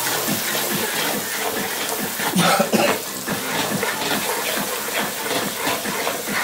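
Steady watery noise with many small irregular crackles, and a louder knock about two and a half seconds in.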